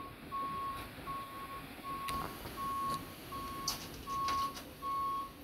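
Reversing alarm of a utility bucket truck beeping as the truck backs up: a single steady tone repeating evenly, about seven beeps in a row.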